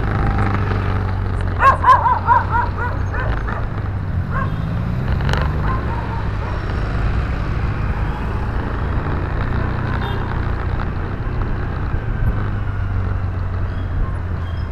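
Car engine and road noise heard from inside a moving car in town traffic, the engine pitch climbing a few seconds in as it speeds up. About two seconds in comes a short string of quick, high-pitched sounds.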